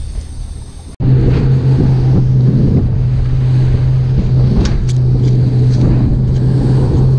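Motorboat running at speed across open sea: a loud, steady engine note under the rush of wind and water against the hull, starting abruptly about a second in after faint outdoor ambience.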